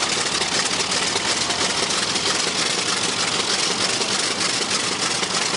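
Focke-Wulf Fw 190 D-9's Junkers Jumo 213 inverted V12 aircraft engine running steadily.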